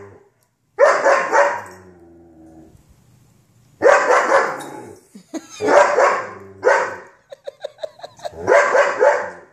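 German Shepherd barking in several separate bouts of loud, deep barks.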